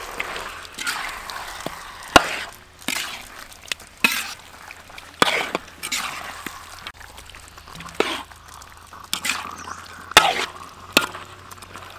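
Metal utensil scraping and clacking against a steel wok while mixing raw chicken wings into a thick chili paste, with wet sticky squelching. The strokes are irregular, with a sharp knock or scrape every second or so.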